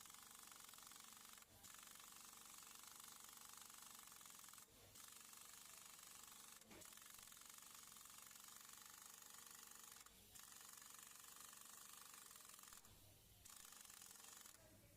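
Near silence: a steady faint hiss of room tone that drops out briefly a few times, with one faint knock partway through.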